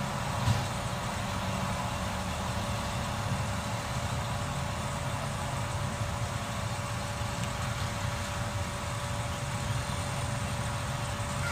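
Automated side-loader garbage truck running steadily while its hydraulic arm grabs and lifts a wheeled cart, with a thin steady tone throughout and a single knock about half a second in.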